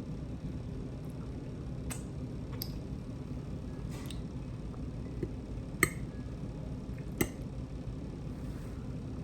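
Cutlery clicking against a plate a handful of times during eating, the two sharpest clicks about six and seven seconds in, over a steady low hum.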